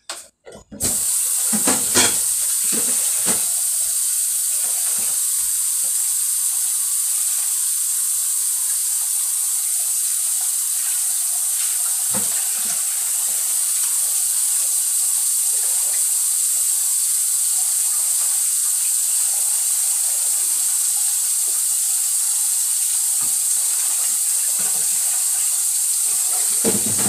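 Steady hiss from a pot of chicken and tomato sauce simmering on a stovetop burner, starting suddenly about a second in, with a few faint pops and ticks over it.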